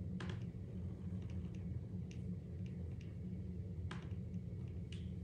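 Steady low hum with a few faint, scattered clicks, the clearest about four seconds in.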